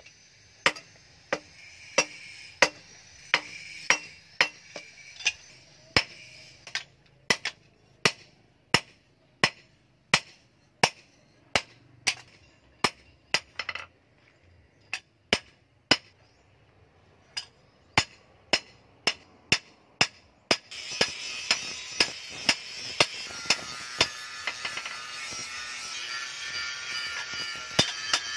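Hand hammer striking a steel kitchen-knife blade on a metal anvil post during forging. Sharp, ringing blows come a little more than one a second, with a short slowdown in the middle.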